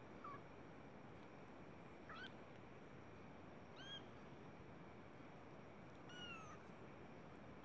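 Young kittens mewing: four short, thin, high-pitched mews about two seconds apart, the last one longer and falling in pitch.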